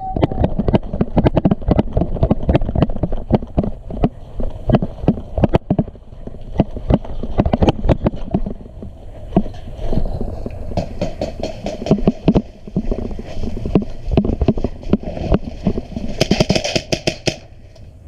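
Irregular heavy thumps and knocks from the movement of a player wearing the camera in an airsoft game, with gear jostling on the microphone. Near the end comes a rapid cluster of sharp, high clicks.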